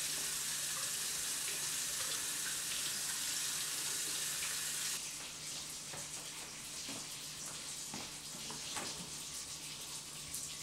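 A tap running steadily, cutting off suddenly about five seconds in, followed by a few light knocks and clicks.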